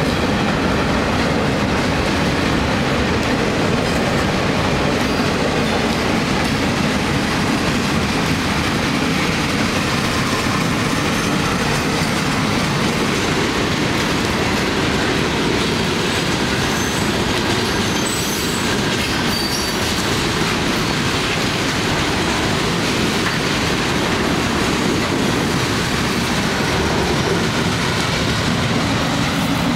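Freight train cars rolling past at close range: a steady rumble and clatter of steel wheels on the rails.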